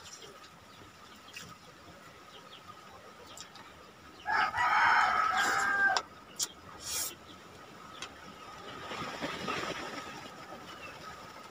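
A rooster crows once, about four seconds in, a loud call lasting a second and a half. A few faint clicks follow it.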